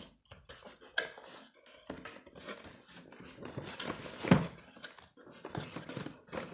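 Cardboard box flaps being opened and inner cardboard packaging handled: irregular rustling and scraping with a few sharp knocks, the loudest about four seconds in.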